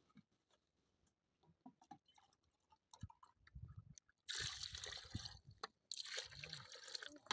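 Water poured from a plastic jerrycan into a steel mug and then into a pot of stew: two stretches of splashing pour, each about a second and a half, after a quiet start with a few light knocks.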